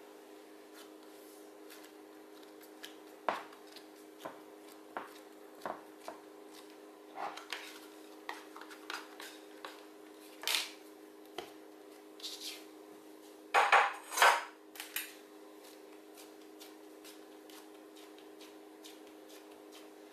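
Ceramic mixing bowl knocking and scraping on a hard worktop while bread dough is worked in it and tipped out: a run of light knocks, then two louder clatters about two-thirds of the way through.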